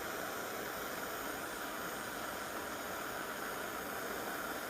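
Gas torch flame hissing steadily while it heats an aluminium garbage disposal housing and melts Alumaloy brazing rod over a hole.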